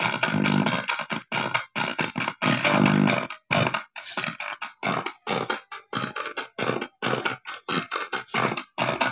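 Audio played through a faulty Yamaha MG166CX mixer, coming out harsh and growling and cutting in and out about twice a second: the growling noise ('ngorok') and channel dropouts that are the mixer's fault.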